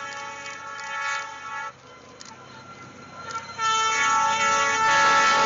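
Train horn sounding in two long blasts: the first ends about a second and a half in, and after a short gap a second, louder blast begins past the halfway point and holds.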